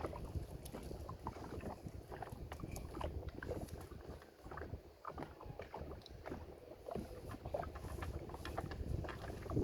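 Water sloshing and irregular knocks around a small fishing boat as a drift net is worked, with wind rumbling on the microphone.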